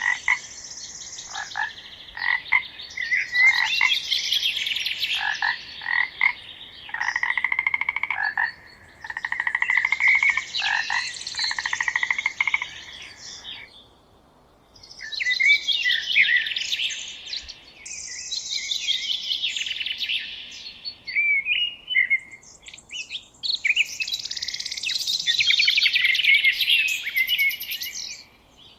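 A songbird singing long phrases of rapid, chattering notes mixed with short whistled sweeps, with a break of about a second halfway through.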